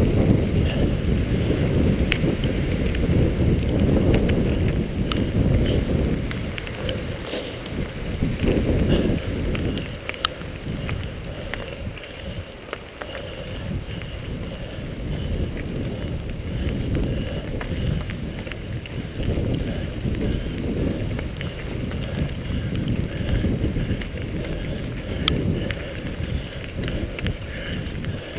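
Mountain bike riding fast down a dirt trail: wind buffeting the microphone over the rumble of tyres on packed dirt. A few sharp clicks and rattles from the bike are scattered through it, and the noise eases a little about twelve seconds in.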